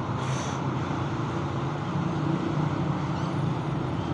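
Steady low background rumble with a faint hum, even throughout.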